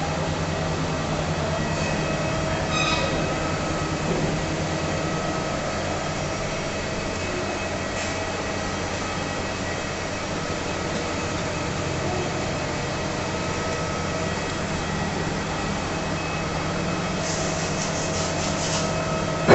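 HMT milling machine running: a steady mechanical drone from its motor and drive, with a few faint clicks.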